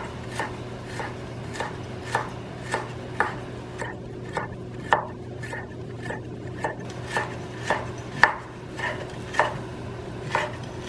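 Chef's knife slicing fresh ginger into thin strips on a wooden cutting board, the blade knocking the board in a steady rhythm about twice a second.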